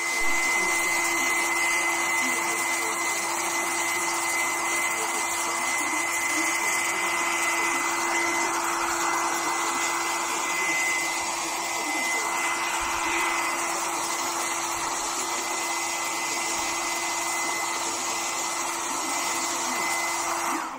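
Hand-held blow dryer running steadily: a constant fan rush with a steady high whine, cutting off at the end.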